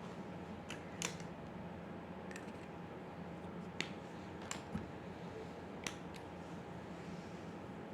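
A few short, sharp clicks and taps at irregular intervals over a steady low hum.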